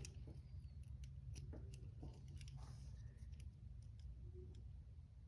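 Faint, irregular small metal clicks and scrapes of steel handcuffs being handled while a key is worked at them, over a low steady hum.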